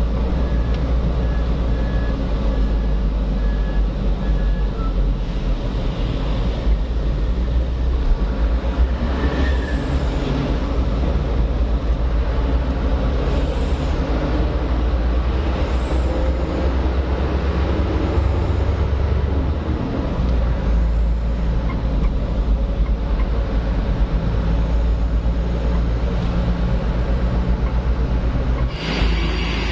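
Truck engine running steadily while driving, a continuous low rumble with road noise. A short row of faint high beeps comes about a second in.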